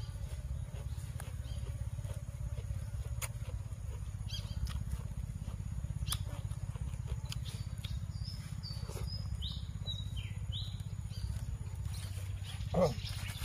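Outdoor ambience with small birds chirping a quick series of short notes that step down in pitch around the middle, over a steady low rumble. Near the end comes one brief, louder sound, with faint small clicks scattered throughout.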